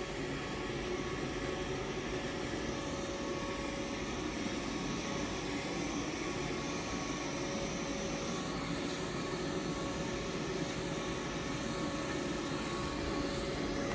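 Gausium Vacuum 40 autonomous robot vacuum running: a steady motor whir with a faint hum.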